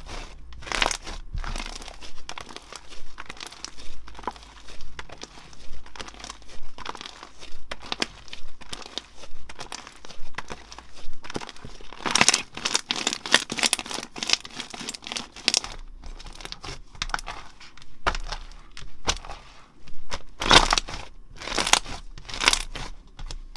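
Slime being squeezed, stretched and pressed by hand, giving irregular crinkly, crackling pops, with busier, louder runs about halfway through and near the end.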